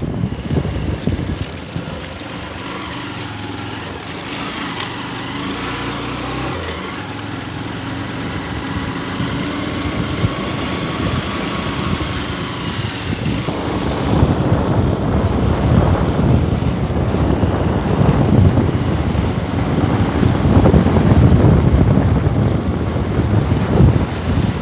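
A motor vehicle driving along with its engine running steadily, under wind rumbling on the microphone. The wind grows heavier and duller about halfway through.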